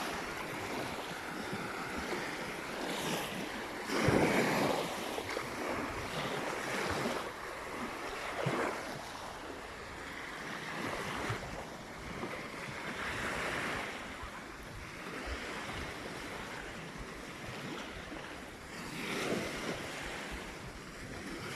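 Sea waves breaking on a beach, the surf swelling and falling back every few seconds, with wind buffeting the microphone.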